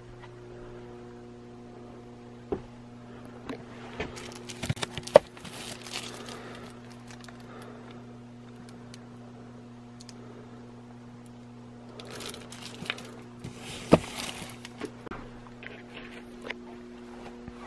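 Handling noise from touching and moving books on wooden shelves: scattered clicks, knocks and rustles in two bursts, about four and thirteen seconds in, each with one sharp knock. A steady low hum runs underneath.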